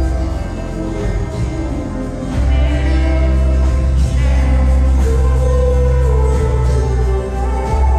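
Amplified live band music with singing over a heavy, sustained bass, the sung melody held in long notes.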